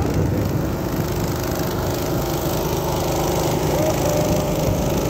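Small boat engine running steadily under way, a constant low mechanical drone.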